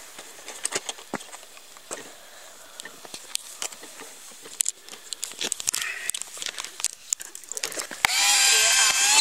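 Scattered light clicks and knocks of fingers working the plastic main landing gear leg and wheel of a foam Durafly T-28 Trojan RC model. Near the end a loud voice cuts in.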